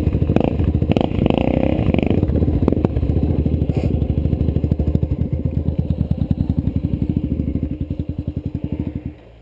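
Off-road motorcycle engine running at idle with a steady pulsing beat, with some clatter in the first two seconds; the beat slows and the engine stops about nine seconds in.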